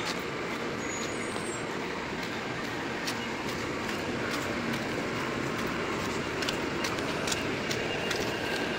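Steady city street traffic noise, an even wash of road sound. Faint light ticks are scattered through it, and a faint thin high tone comes in about three seconds in.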